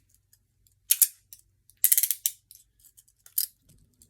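Steel handcuffs clicking and ratcheting as they are handled: a short metallic rattle about a second in, a longer run of clicks around two seconds, and another brief rattle near the end.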